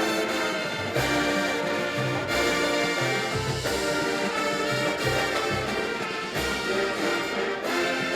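Drum and bugle corps brass line playing sustained chords, with the notes shifting every second or so.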